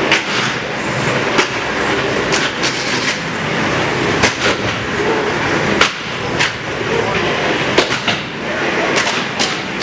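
Combat robots fighting, with about a dozen sharp clanks of impacts scattered through the fight over a steady noisy background.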